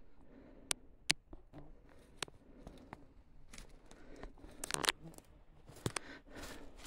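Footsteps crunching on a dry forest floor of pine needles and sticks, with a few sharp cracks of twigs underfoot.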